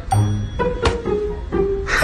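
Background music made of short, low string notes, one after another.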